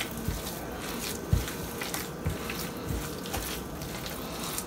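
A hand squeezing and mixing a wet minced-chicken mixture with raw egg in a steel saucepan: soft squelching, with a dull thud about once a second.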